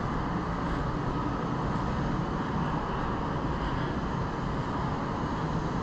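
Steady, even city hum of distant traffic, with no distinct events.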